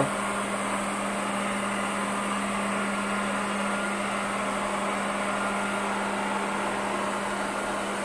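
JISIWEI i3 robot vacuum cleaner running as it drives across a hardwood floor: a steady, even whirring hum with a constant low tone underneath.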